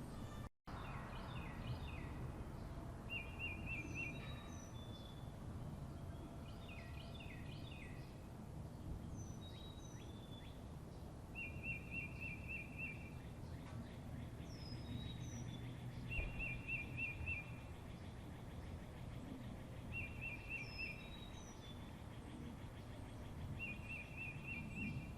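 Several songbirds calling: a short, rapid trill repeated every few seconds, with scattered high down-slurred chirps, over a steady low rumble of background noise.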